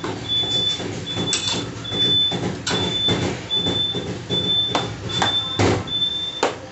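A metal spatula scrapes and clanks against a large metal wok as rice noodles are tossed, in irregular strokes. A high tone beeps on and off a little more than once a second.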